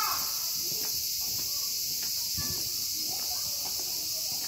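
Steady high-pitched insect chorus, with a crow's caw ending right at the start.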